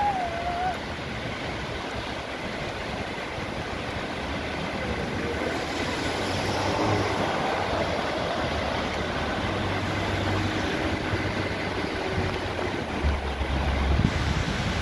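Heavy rain falling: a steady, even hiss, with low rumbles of wind on the microphone near the end.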